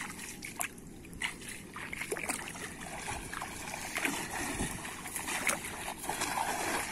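Shallow water splashing and sloshing around a wading fisherman's legs as he swings and throws a cast net, then the spread net coming down on the water with a spattering splash near the end.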